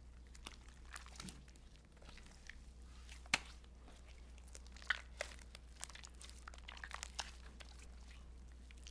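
Powder-and-water slime being stretched, pulled apart and squeezed in the hands: faint sticky crackles and squelches, with a few sharper snaps, the loudest about three seconds in.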